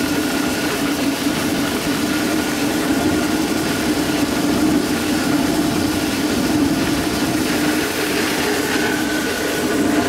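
Homemade steam whistle made from an empty propane cylinder, blowing a steady, deep, slightly wavering tone over the hiss of escaping steam.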